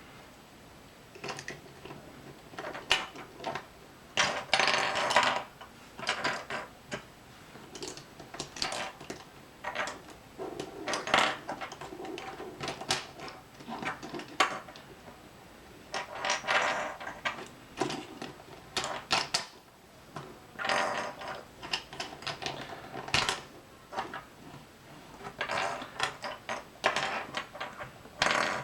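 Plastic Rubik's Cube pieces clicking and clattering as the loose pieces are handled and fitted back into the cube. The clicks come in irregular clusters a few seconds apart, some running on into short rattles.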